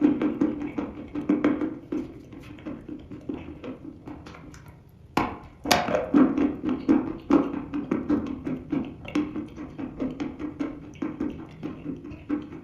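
Dry red chalk being bitten and chewed close to the microphone: a dense run of crunching crackles, with two sharp, louder bites just after five seconds in and steady chewing around them.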